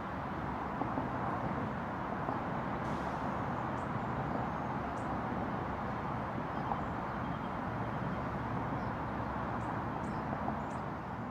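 Steady outdoor city ambience: a constant rumble and hiss of distant traffic, with a few faint short high chirps scattered through it.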